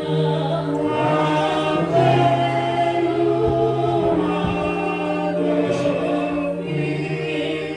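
Congregation singing a slow chorus together in long held notes, the melody moving every second or two.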